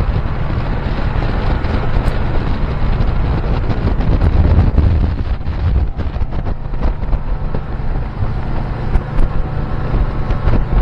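Boat under way at sea: strong wind buffeting the microphone over the steady running of an Evinrude E-TEC outboard motor.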